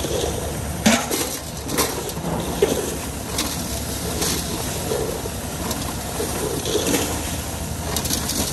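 Tractor-driven maize sheller running steadily, crushing and shelling dried corn cobs. Sharp knocks of cobs dropping into steel basins sound over it.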